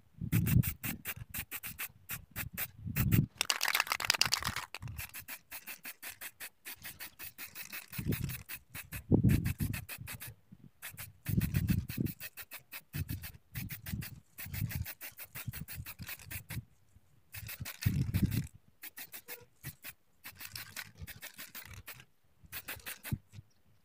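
Aerosol spray-paint can hissing in short bursts, amid rapid clicking and rubbing handling noise and occasional low thumps.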